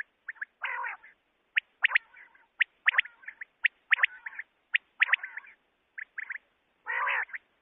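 Common quail calling: short, sharp notes in quick pairs and triplets, repeated throughout, with a longer raspy call about a second in and another near the end.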